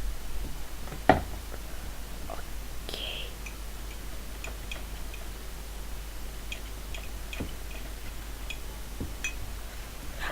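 Faint scattered ticks and light taps, with one sharper knock about a second in: a utensil stirring toothpaste in a mug.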